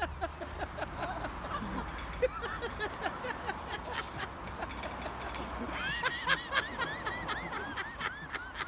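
A person laughing and giggling in short, high-pitched, repeated bursts that grow denser about two-thirds of the way through, with scattered sharp clicks and knocks.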